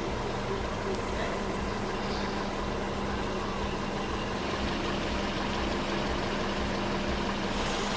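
Steady low mechanical hum with a few constant tones, even in level throughout.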